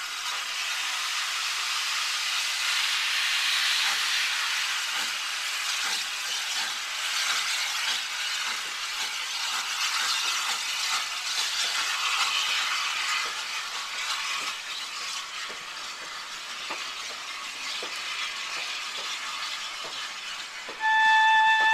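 Steam train pulling away along the track, heard as a steady hiss with faint, irregular clicks underneath. Flute music comes in just before the end.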